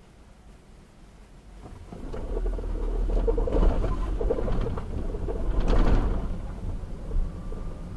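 A car pulling away from a standstill, heard from inside the cabin: engine and road noise swell about two seconds in, peak twice, then ease off a little.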